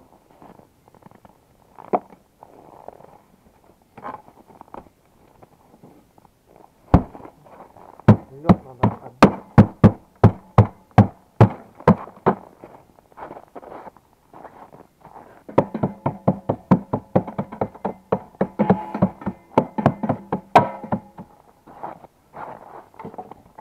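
Metal knocks and clanks of hand tools working on a Buran snowmobile's recoil starter: scattered knocks, then a steady run of sharp strikes about two or three a second, then a quicker run of clicks with a metallic ring near the end.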